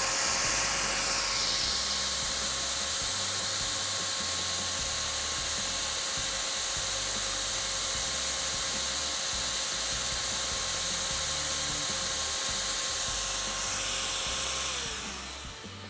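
Yellow corded drill spinning the abrasive wheel of a Summit Racing USA-1 piston ring filer: it runs up to speed with a steady whine over a hiss, while a piston ring's end is passed lightly across the wheel on test passes to open the end gap. Near the end the drill is let off and winds down.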